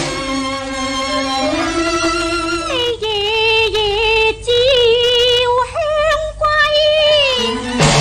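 A female Cantonese opera (yuequ) singer sings a slow, drawn-out melismatic line with heavy vibrato over instrumental accompaniment. There is a sharp percussive knock near the end.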